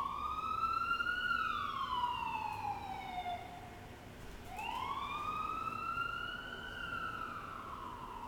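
Emergency-vehicle siren wailing in two slow rise-and-fall sweeps, the first peaking about a second in and falling away, the second rising again about halfway through.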